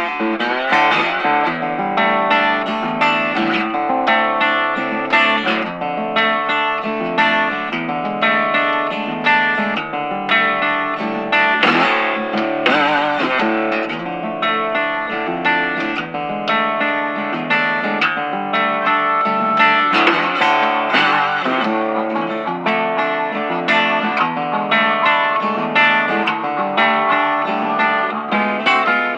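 Background music led by guitar, a steady stream of quick plucked notes.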